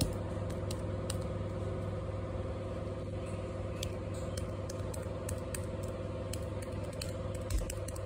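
All-in-one desktop computer running with a steady electrical hum made up of several steady tones, with faint scattered clicks.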